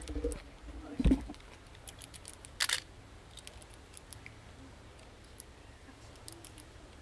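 Faint, scattered sharp clicks and a short crackle near the middle: a small animal up in the tree crunching on a tortilla chip. A dull low bump comes about a second in.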